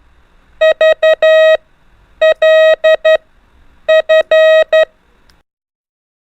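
Morse code CW practice tone: a single steady beep keyed on and off in dots and dashes, sending three letters from the L, F, V set about a second and a half apart. It then stops about a second before the end.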